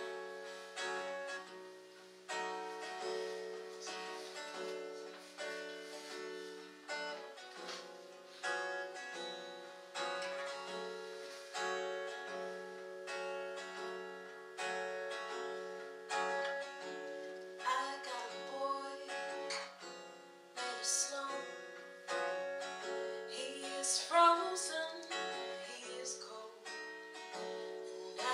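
Acoustic guitar played solo in a steady pattern of strummed chords, with a few short phrases sung by a woman's voice in the second half.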